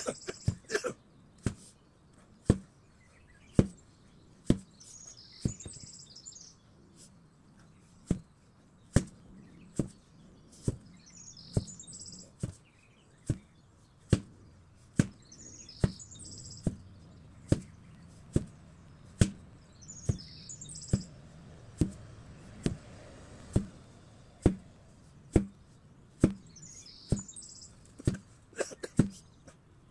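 8 kg sledgehammer striking repeatedly in a steady rhythm, about one blow a second, with birds chirping now and then in the background.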